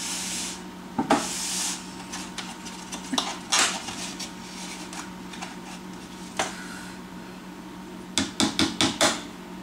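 Kitchen clatter of dishes and utensils being handled and set down: scattered knocks and rustles, then a quick run of about six knocks near the end, over a low steady hum.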